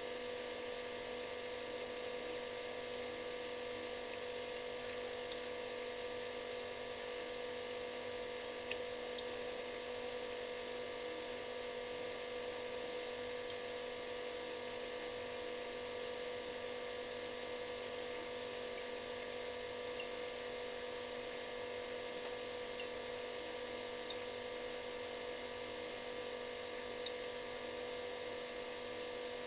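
Refrigerator running with a steady buzzing hum: one strong, even tone over weaker tones and a faint hiss.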